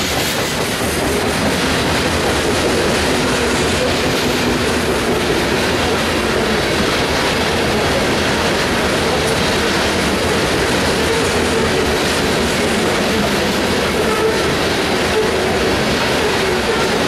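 Freight train of covered hopper cars rolling past, its steel wheels running steadily on the rail.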